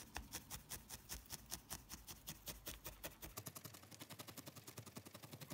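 Felting needle stabbing repeatedly through loose wool into a foam pad: a fast, faint run of soft punches that gets quicker about three seconds in.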